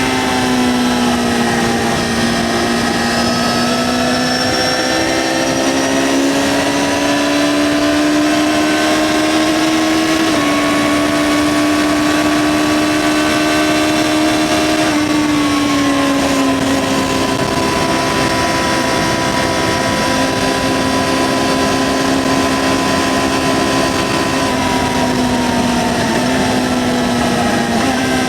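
2009 Yamaha XJ6-N's inline-four engine through its stock exhaust, running under way at fairly steady high revs. Its pitch shifts slightly up or down a few times.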